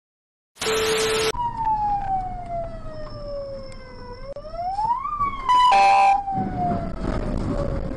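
A siren wailing, its pitch sliding slowly down and then quickly back up, after a short burst of hiss at the start. About two thirds of the way through, a brief loud blare cuts across it, and vehicle rumble comes in near the end.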